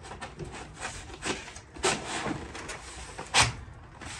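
A foil-faced polyurethane insulation board being pushed and worked into a timber floor frame: irregular scraping and rubbing of board against wood, with a few sharp knocks, the loudest about three and a half seconds in.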